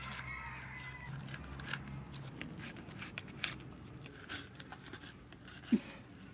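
Metal utensil scraping raw chital fish flesh off the skin: small, irregular wet scrapes and clicks, with one louder knock about five and a half seconds in.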